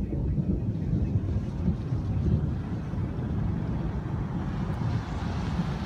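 Thunderstorm: a low, continuous rumble, with a hiss growing in over it near the end.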